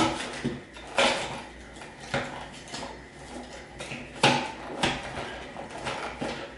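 Handling clicks and knocks from wires and twist-on wire connectors being tucked back into an electrical wall box around a wall switch. About six sharp clacks come at irregular intervals, the loudest about four seconds in.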